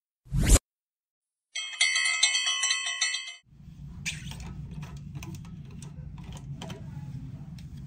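A quick rising swoosh sound effect, then a bright bell-like chime of several ringing notes lasting about two seconds, the loudest thing here, as on a subscribe-button intro animation. After that comes a low room hum with light clicks and handling noises as a plastic juice bottle is opened.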